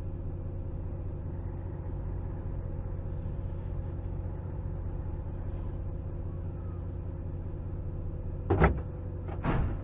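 Steady low rumble of an idling vehicle engine, then two loud bangs about a second apart near the end as the towed box truck swings into the stationary vehicle and hits it.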